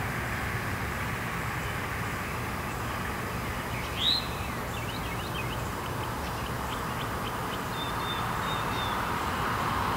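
Steady distant road traffic noise, with a bird's loud call about four seconds in, followed by a run of short high chirps.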